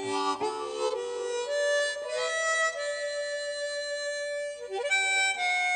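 Slow background music: a melody of long held notes that steps from one pitch to the next every second or so.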